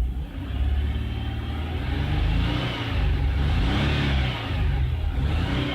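2003 Jaguar X-Type V6 engine being revved, rising in pitch to a peak about four seconds in and then falling back. The engine has misfires that the mechanic can feel, which he ties to bank 2.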